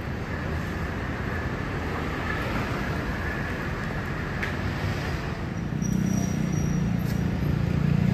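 City buses running and pulling away over steady traffic noise; about six seconds in the diesel engine hum of a MAN double-decker bus driving close past grows louder, with a brief high whine.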